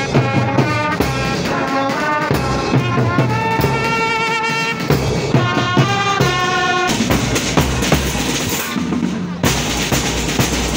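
Marching band playing: brass holding a melody with wavering notes over bass drum and snare. About seven seconds in the brass drops away and mostly drumming carries on.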